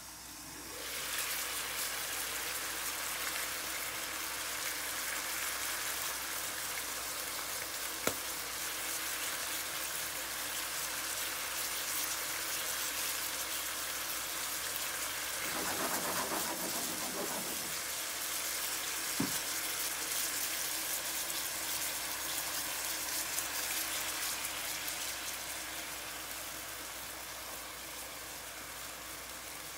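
Pork-wrapped Japanese long onion (naga-negi) rolls sizzling and frying in a pan of bubbling juices, the sizzle growing louder about a second in and then holding steady, with an occasional light click.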